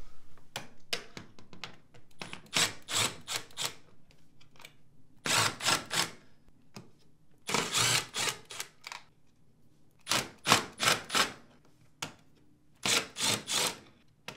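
Cordless impact driver backing out the screws that hold a dishwasher's lower door seal. It runs in short rattling bursts of about a second each, roughly six of them, with pauses in between.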